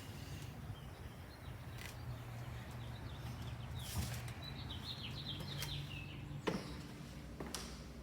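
Faint bird chirps, short repeated calls coming in runs, over a low steady hum, with a few sharp clicks.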